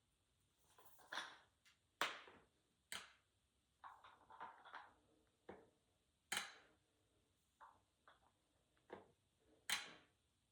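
Faint, irregular clicks and knocks, each a single short strike, spaced about a second or so apart.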